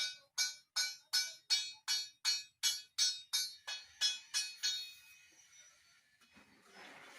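A hammer striking sheet metal in rapid, even blows, about three a second, each blow ringing. The blows stop about five seconds in, and a short scraping noise follows near the end.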